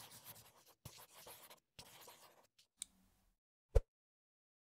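Scribbling on paper: three short runs of scratchy drawing strokes, then a small click and a sharp tap near the end.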